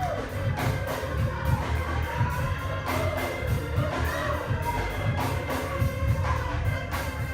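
Gospel music: voices singing over a steady percussion beat.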